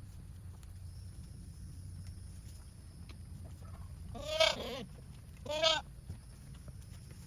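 Goat bleating twice, a few seconds in: a longer wavering call followed by a shorter one.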